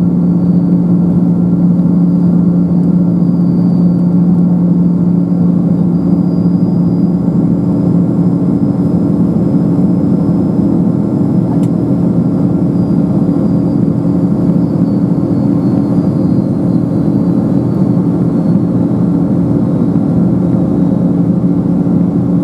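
Inside the cabin of a Boeing 777-200 in the climb, its Pratt & Whitney PW4000-series turbofans at climb power. The sound is a steady low drone with a faint high whine on top that sinks slightly in pitch in the second half.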